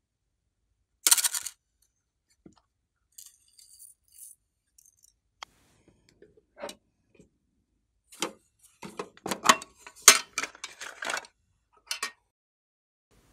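Small hard objects being handled on a tabletop: a brief clattering rattle about a second in, scattered light clicks, then a quick run of clinks and clacks over a few seconds near the end.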